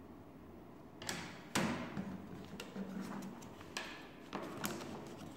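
Plywood parts of a laser-cut wooden model pistol kit clicking and knocking together as they are handled and fitted. A louder knock comes about a second and a half in, followed by lighter irregular clicks.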